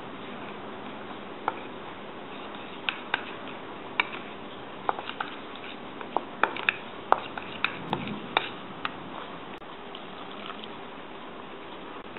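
Metal spoon stirring flour batter in a stainless steel bowl, clinking sharply against the bowl at irregular moments, most often around the middle, over a steady background hiss.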